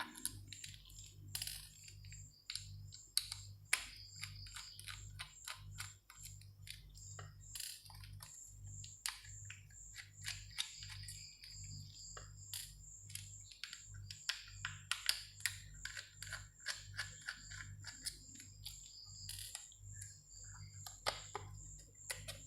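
Small screwdriver clicking and ticking as the side screws are undone from a laptop hard drive's mounting bracket, with light metallic clinks of small screws. The clicks come many times a second in irregular runs over a low steady hum.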